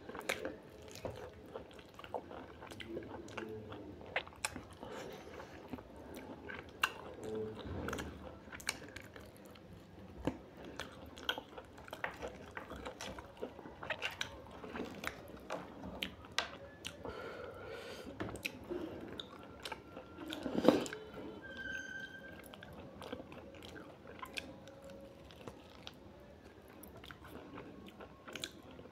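A person eating mutton curry with rice and roti, chewing and biting close to the microphone, with many small clicks and crunches throughout. A single louder knock comes about two-thirds of the way through.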